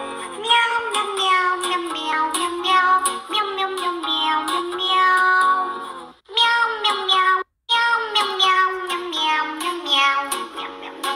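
Background music: a song sung in a high, childlike voice. It drops out briefly twice, about six seconds in and again around seven and a half seconds.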